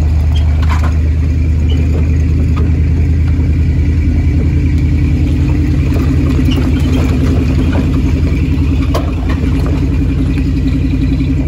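An old van's engine running steadily as it drives up a rough gravel driveway, a low even drone, with scattered clicks and rattles from the body and the stones under the tyres.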